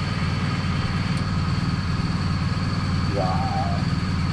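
Ducati Diavel for Bentley's 1158 cc V4 engine idling steadily on its first run after uncrating, an even fast low pulse. A brief voice sound comes about three seconds in.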